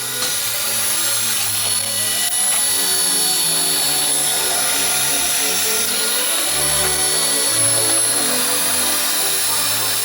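Background music with a bassline changing notes every second or so, over a steady whirring hiss with a thin high whine.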